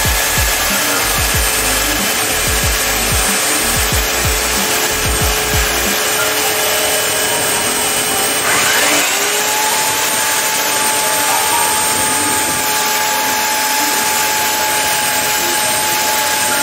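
Electric drill boring a hole through ceramic wall tile, its bit cooled with water: a steady motor whine over grinding noise, with the motor pitch stepping up about halfway through.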